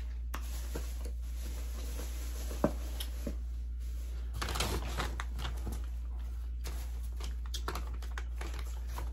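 Light clicks and rustles of eating from plastic takeout containers, a fork tapping and scraping; one sharper click about two and a half seconds in and a short burst of rustling around the middle. A steady low hum runs underneath.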